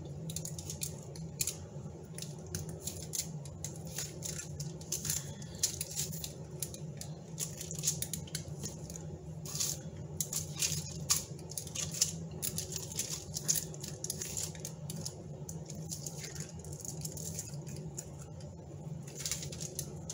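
Raw fish fillets being turned over on crinkling aluminium foil with a plastic fork and fingers: irregular small crackles, taps and wet slaps. A steady low hum runs underneath.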